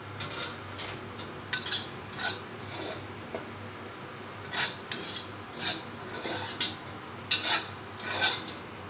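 Metal spatula scraping dry-fried grated coconut out of a steel wok into a stainless steel bowl: a run of about fifteen short, irregular rasping scrapes.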